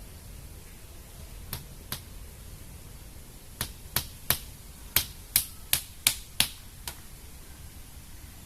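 About a dozen sharp clicks or taps at irregular intervals, two at first and then bunched close together in the second half, over a low steady rumble of wind on the microphone.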